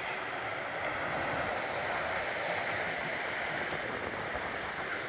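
Steady rushing noise with no distinct events and no change in level.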